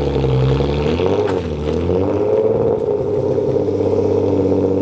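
A car engine running steadily. About a second in its pitch dips briefly and then recovers.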